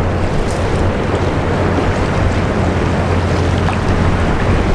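Wind buffeting the microphone over a steady low drone and the wash of water from a large LNG-powered container ship passing close by.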